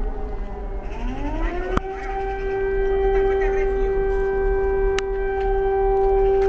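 Civil defense air raid siren sounding an alert across the city. Its pitch winds up again about a second in, then holds one steady wailing note.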